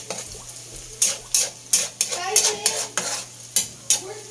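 Metal spatula scraping and knocking against a wok, several times a second, as pork and onion stir-fry in hot oil, with a steady sizzle underneath.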